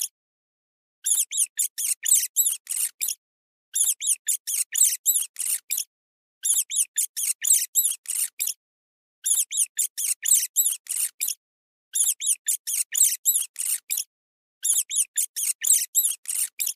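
High-pitched small-animal squeaking, laid on as a looped sound effect: bouts of rapid squeaks, about four a second, each bout about two seconds long, broken by short dead-silent gaps and repeating evenly six times.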